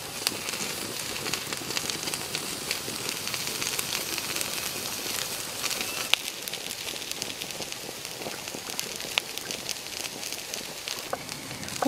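Open wood fire crackling with scattered small pops over a steady hiss from a wok of water boiling on it.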